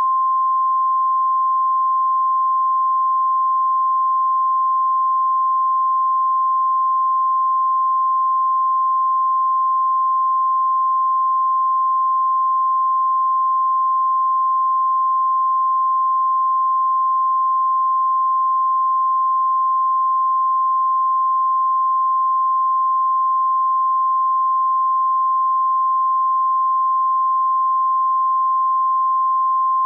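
Steady electronic tone at one unchanging high pitch, a plain broadcast-style tone that starts abruptly out of silence.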